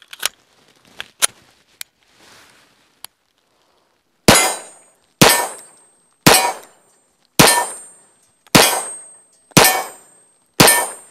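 A few small metallic clicks as the Colt Gunsite 1911 pistol is handled and readied, then seven pistol shots fired about one a second.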